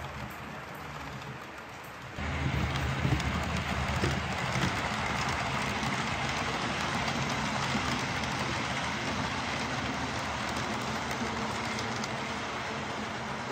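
HO-scale model train running on the layout's track: a steady rolling rumble and hiss with fine clicking. It turns abruptly louder about two seconds in.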